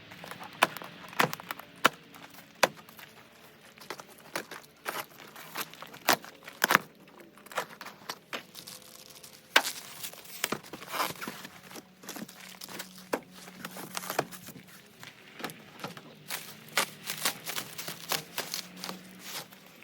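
Irregular sharp clicks and light knocks of things being handled, with a faint steady hum in the second half.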